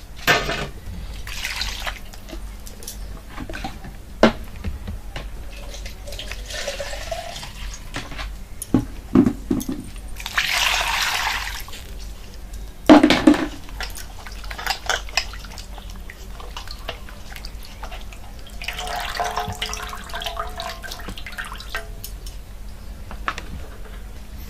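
Water sloshing and dripping as raw fish pieces are washed by hand in a steel bowl, with scattered knocks against the metal bowl. Louder rushes of water come about ten and again about nineteen seconds in.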